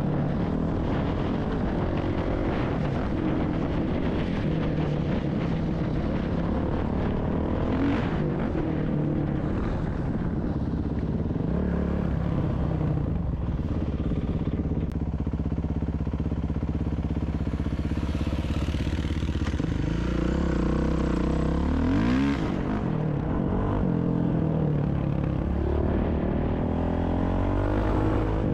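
Off-road motorcycle engine running while riding a dirt trail, its note rising and falling with the throttle, with quick revs about two-thirds of the way through and again near the end.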